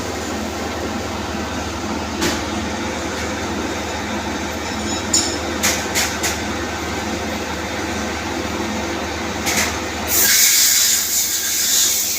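CNC machine running with a steady mechanical hum, with a few sharp clicks. About ten seconds in, a louder hiss joins in.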